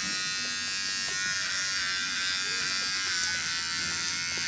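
Cordless electric pet clippers running with a steady buzz while shaving the fur on a dog's belly.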